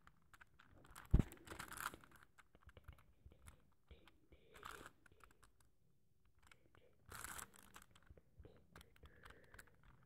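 Rubik's cube being twisted by hand close to the microphone: scattered faint plastic clicks and scrapes as the layers turn. There is a sharp thump about a second in and a few short rustling bursts from handling.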